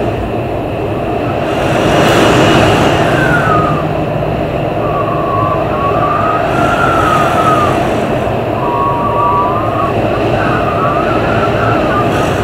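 Heavy storm wind gusting in a loud, steady rush, swelling a couple of seconds in, with a thin wavering whistle that rises and falls through the gusts.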